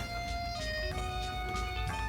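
Background music: an instrumental track with held melody notes stepping in pitch over a steady beat and bass.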